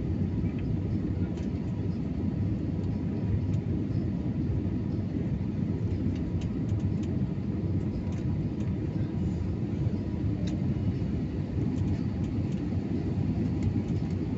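Steady low rumble of engine and airflow noise inside the cabin of an Airbus A321neo climbing out after takeoff.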